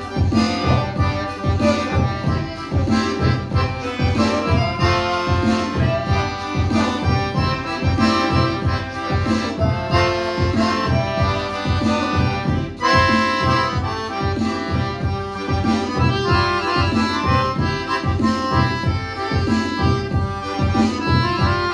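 Piano accordion playing a lively tune, the right-hand melody over a steady, quick pulse of left-hand bass notes and chords.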